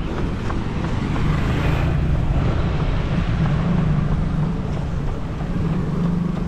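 Street traffic, with motorcycle engines running past in a steady hum that swells through the middle.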